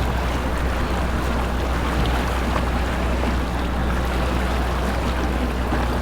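Boat engine running with a steady low rumble, mixed with water and wind noise.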